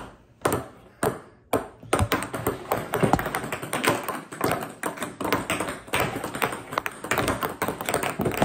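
Ping-pong balls bouncing on a wooden tabletop. A few separate taps come first, then from about two seconds in a rapid, overlapping run of bounces as two players throw at once.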